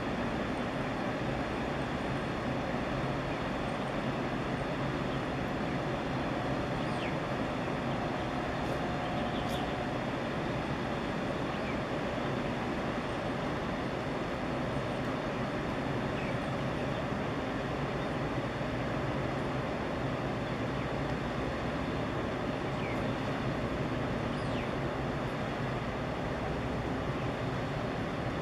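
Steady low rumble of a large container ship, the Evergreen S-type Ever Smart, running slowly past close by, with an even noise over it and no sudden events.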